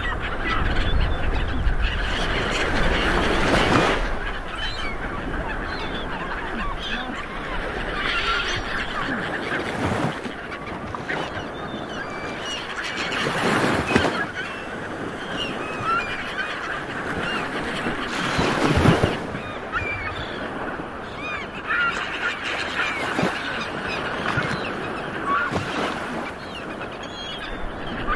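A flock of birds calling over one another, many overlapping honking calls above a steady rushing background, swelling louder every few seconds.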